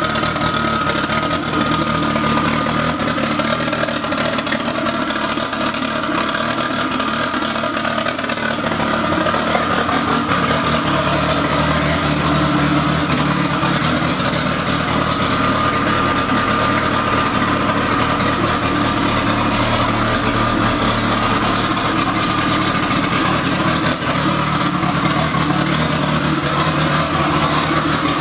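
Built Honda K-series turbocharged four-cylinder in a mid-engined Toyota MR2 idling steadily on its first start after the swap.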